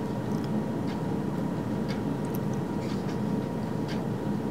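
Steady low room hum with a few faint, scattered clicks.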